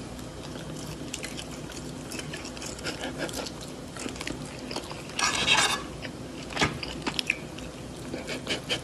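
Eating at a table: a fork clicking and scraping on a plate, with chewing and a cat biting food off the fork, as a string of small clicks and taps. A short louder rustling burst comes a little past five seconds in.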